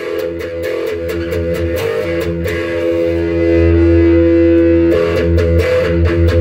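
Electric guitar chords strummed and left ringing, played loud through a Marshall JCM800 50-watt EL34 tube amp to test its newly fitted post-phase-inverter master volume. It starts abruptly and there is no feedback howl.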